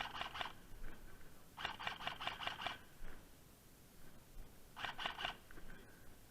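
Airsoft gun firing three short bursts of rapid shots: one at the start, a longer one about two seconds in, and a brief one near the end.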